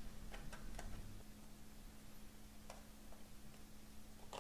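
Faint, scattered light clicks of a precision screwdriver and small screws against a MacBook Air's aluminium bottom case as the case screws are driven back in, with a stronger click near the end, over a low steady hum.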